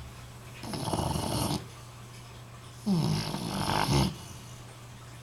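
Snoring: two breaths about two seconds apart. The first is a noisy rasp; the second is louder and starts with a pitched tone that drops in pitch.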